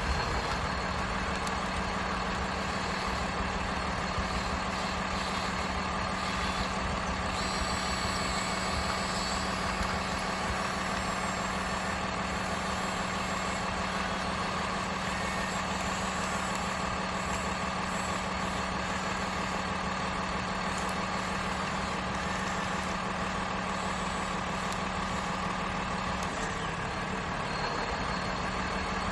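Radio-controlled toy excavator and dump truck running during sand loading: a steady electric motor hum with a constant low tone, unbroken throughout.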